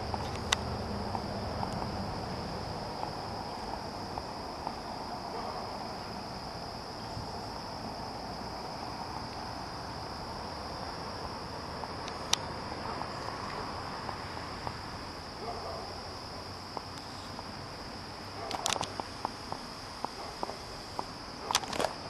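Steady high-pitched insect chorus, with a few scattered clicks of handling or brush; footsteps and rustling start near the end.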